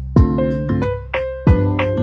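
Background music: electric piano chords over a steady bass and kick-drum beat.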